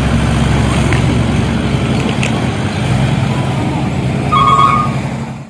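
Truck engine running steadily, with a short high tone sounding about four seconds in.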